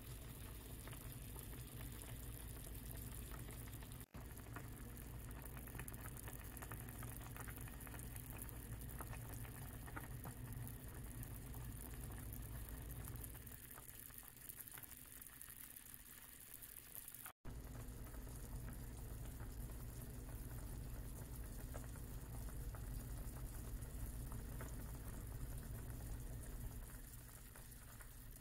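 Saucepan of chicken and vegetable stew boiling on the stove: a steady patter of small bubbles popping, over a low steady hum, breaking off for an instant twice.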